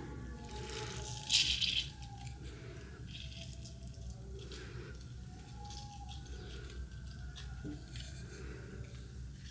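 Light clicks and clatter of kitchen utensils and food being handled, with one louder brief rustle about a second and a half in, over a steady low hum.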